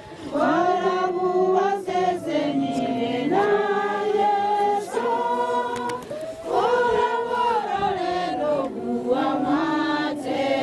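A group of voices singing a slow song together, unaccompanied, in long held phrases with short breaks for breath between them.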